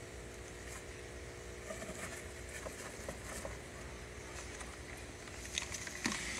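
Steady hum of an air compressor aerating a compost tea barrel, with light clicks and rustles as twine is tied around a wooden box, and a few louder wooden knocks near the end as the box is lifted.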